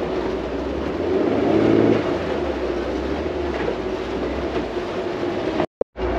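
Small motorboat's engine running steadily under way, with wind and water noise. The sound drops out for a moment near the end.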